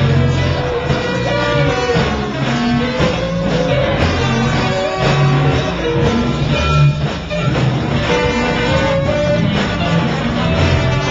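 Live rock band playing, with drums, horns and keyboards in a dense, continuous mix.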